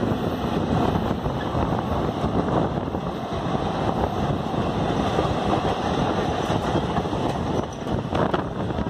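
A suburban electric multiple-unit train running along the track, heard from its open doorway: a steady rumble of wheels on rails with air rushing past and buffeting the microphone.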